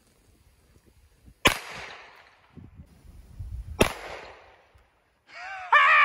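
Two pistol shots about two seconds apart, each trailing off briefly. Near the end, a loud cry from a voice.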